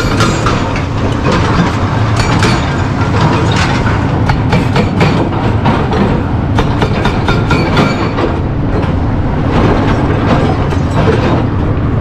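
A hydraulic rock breaker on an excavator hammers stone in rapid, uneven blows over the steady running of heavy diesel excavator engines, with rock clattering.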